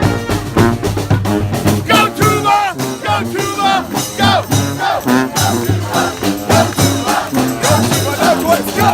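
Street band music: horns playing over a steady drum beat.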